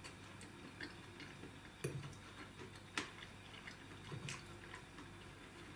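Metal fork clicking faintly against a plate as it picks at fried mushrooms and peppers, with a few short sharp taps, the clearest about two and three seconds in.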